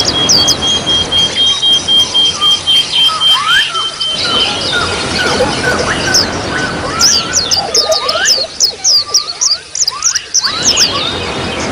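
Trickling water with small songbirds chirping over it in runs of quick, high, falling notes. A thin, steady high whistle holds for the first few seconds.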